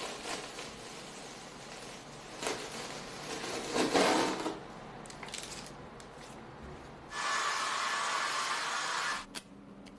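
Masking tape and a painting tool rubbing on a stretched canvas: uneven rubs and scrapes, the loudest about four seconds in, then a steady scrape lasting about two seconds from about seven seconds in as a tool is drawn along the canvas.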